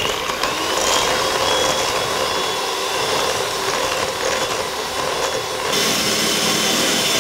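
Electric hand mixer running steadily, its beaters whipping liquid cream in a stainless steel bowl so that it thickens into whipped cream. The tone shifts slightly about six seconds in.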